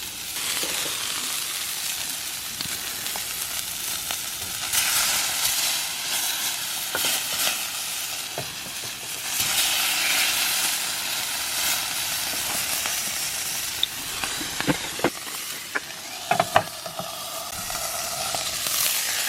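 Sausages sizzling in a frying pan, a steady hiss that swells louder twice, with a few light clicks near the end.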